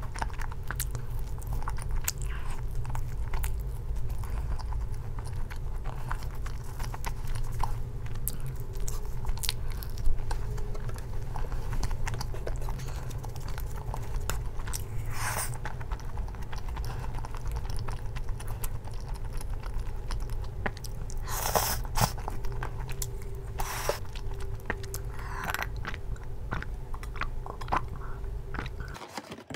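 Close-up chewing and biting of pizza crust and spaghetti, with crunches and small clicks, and a few louder crackles of a fork in an aluminium foil tray, over a steady low hum.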